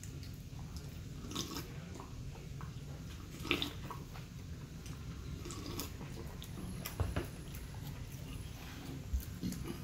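Close-up eating and drinking sounds: chewing and gulps from a large paper cup, with scattered small clicks and a sharper knock about 7 s in, over a steady low hum.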